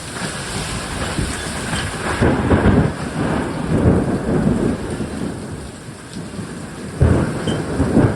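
Severe thunderstorm: steady heavy rain, with thunder rumbling from about two seconds in and a sudden loud burst near the end.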